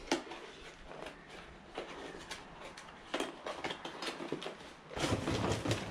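Car parts and their packaging being handled and rummaged through: a string of light clicks, taps and rustles, with a louder rustling scrape about five seconds in.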